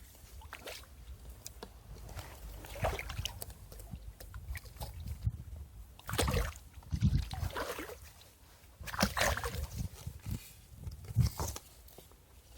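Water sloshing and splashing in irregular bursts, the loudest about 3, 6.5, 9 and 11 seconds in.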